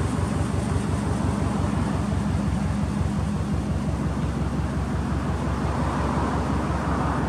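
Subaru Impreza WRX's EJ20 turbocharged flat-four idling steadily through an aftermarket exhaust, a low even pulsing note.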